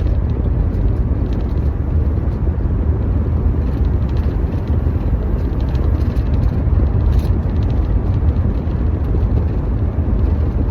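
Steady low rumble with a fainter hiss above it, such as road or wind noise.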